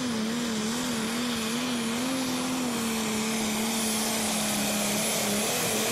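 Engine of a 2.5-ton modified pulling tractor running flat out under load during a pull, a loud, high, steady drone. Its pitch wavers slightly for the first few seconds and then holds steady.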